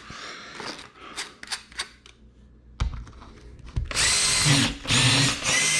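Power drill boring a pilot hole into a wood wall to find a stud. It runs in three short spells with a steady whine, starting about four seconds in, after a few light clicks and knocks.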